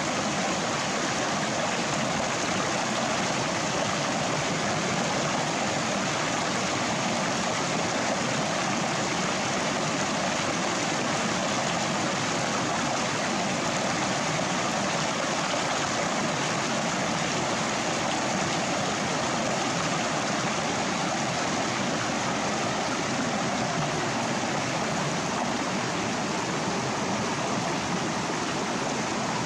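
Steady rushing of running water, like a stream or small waterfall, starting abruptly and holding one even level throughout.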